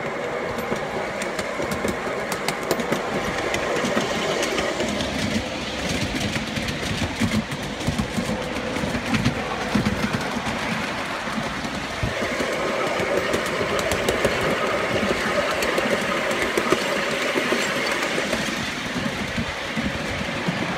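A 5-inch gauge miniature passenger train running along its track, heard from aboard a coach: a steady rumble and rattle of the wheels on the rails, with light clicking and a faint steady whine over it.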